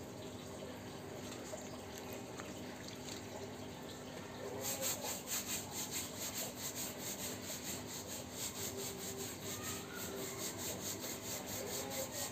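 A stiff hand brush scrubbing a fabric sofa cushion wet with dissolved detergent, in quick rhythmic strokes, about five a second, that start about a third of the way in.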